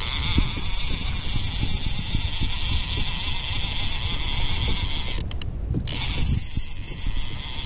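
Fishing reel whirring steadily as line is worked against a hooked fish, with a short break about five seconds in before it starts again.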